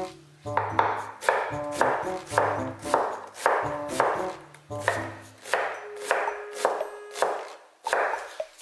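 Chef's knife dicing an onion on a wooden cutting board: quick repeated chops, about two to three a second, the knife knocking on the wood. Background music with a bass line plays underneath.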